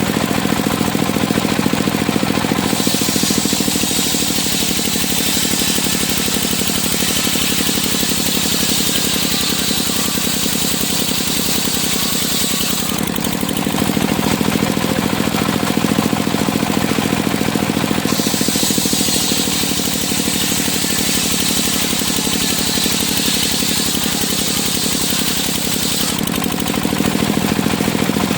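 Engine-driven circular sawmill (serkel) running steadily. Twice, for about ten and then eight seconds, a high hissing whine comes in over the engine hum as the blade cuts wood.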